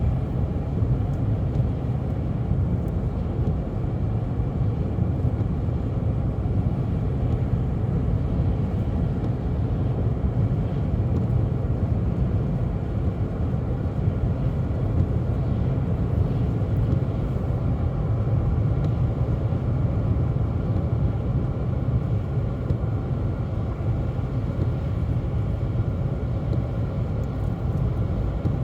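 Steady road and engine noise inside a moving car's cabin: an even low rumble.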